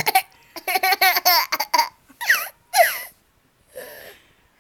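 A toddler laughing in a run of short high-pitched bursts, then two falling squeals about two seconds in.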